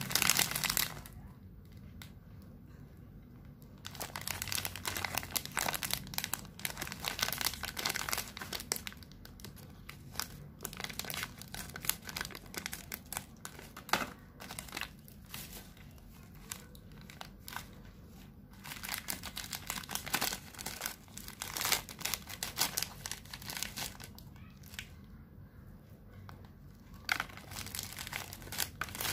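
Plastic wrapper of a wafer-cone snack crinkling in bursts as it is handled and torn open by hand, with a couple of quieter pauses.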